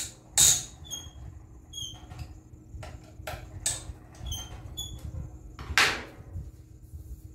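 Clicks and knocks of metal parts, with a few very short high squeaks, as a knife is unclamped from a guided knife-sharpening jig. A brief rustle of tissue paper comes near the end.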